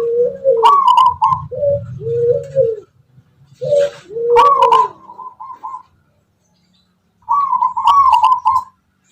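Zebra dove (perkutut) of the Tuban 'tangguh' type singing its rhythmic cooing song. There are three phrases of rounded notes with short pauses between them, and a longer silence after the middle.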